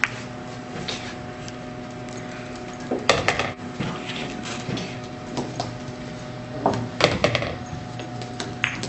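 Pool balls clacking together and knocking against the table as a small dog chases and paws them across the felt, in two short clusters of sharp knocks a few seconds apart over a faint steady hum.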